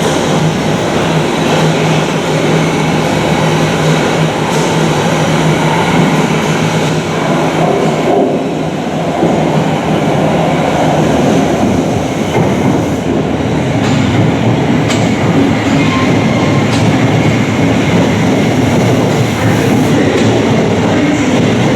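Thameslink Class 700 Desiro City electric train moving through the station, a loud, steady running noise of wheels and motors. A low hum is heard for the first eight seconds or so, then fades.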